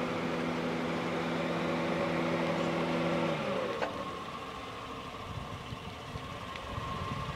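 A car engine running with a steady, even hum that falls in pitch and dies away about three and a half seconds in. A sharp click follows, then a quieter steady high tone over a low rumble.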